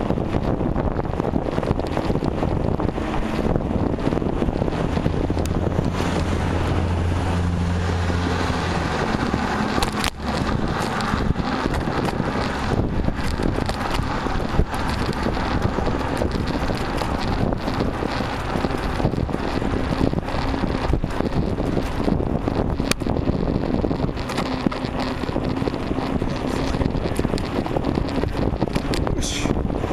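Wind buffeting the microphone of a bicycle-mounted camera while riding, mixed with road and traffic noise. A steady low hum rises out of it for a few seconds near the start.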